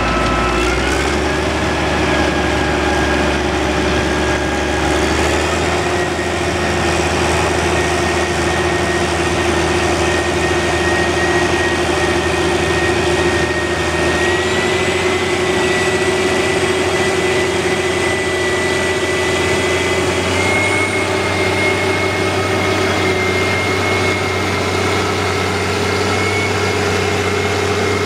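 Steenbergen Hollanddrain EGS 3000 drainage trencher at work: its diesel engine runs steadily under load with a high whine over it. The pitch steps up slightly about a second in, around five seconds in and again about twenty seconds in.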